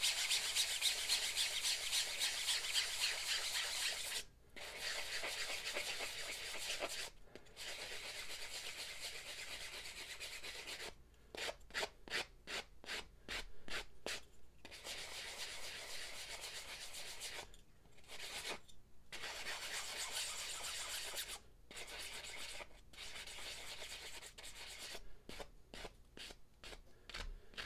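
Ultrafine sanding sponge rubbed by hand over a 3D-printed rangefinder housing part: a scratchy rasp in long back-and-forth runs with brief pauses, breaking into quick short strokes in places.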